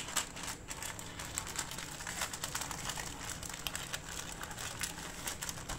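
Wrapping paper rustling and crinkling as it is folded and creased by hand around a paratha, a continuous run of small crackles.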